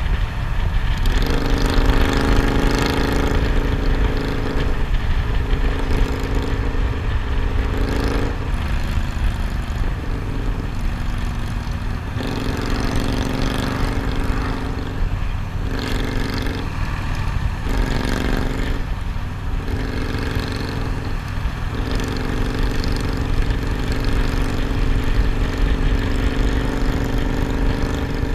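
Cruiser motorcycle engine running at road speed, heard from the handlebars under a heavy low wind rumble. The engine note eases off and comes back several times as the throttle is rolled off and reopened.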